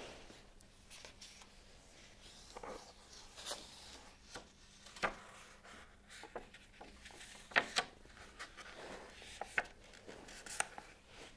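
A hardcover book being opened and its paper leaves turned by hand: soft paper rustling and sliding with scattered light taps, and a few sharper crisp snaps of paper, two close together about two-thirds of the way through.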